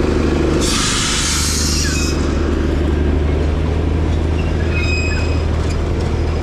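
Riding a scooter slowly alongside the Darjeeling Himalayan Railway toy train: a steady low engine drone with road and wind noise, a burst of hiss about a second in, and faint high-pitched squeals near the end.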